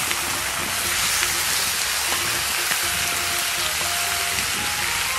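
Pieces of snakehead fish and fish bones frying in hot oil in a large wok, a steady, even sizzle.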